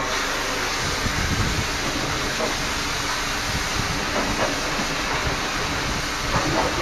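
High-pressure drain jetter blasting water into a septic pipe to clear a blockage of cat sawdust litter: a loud, steady rushing hiss that comes on at the start, replacing the machine hum just before.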